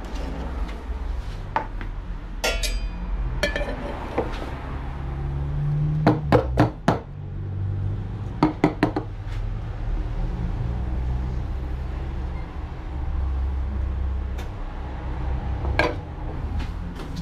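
Coffee-making crockery and equipment being handled: scattered clinks and knocks of cups and metal over a steady low hum, with a quick run of hard knocks about six seconds in and a couple more shortly after.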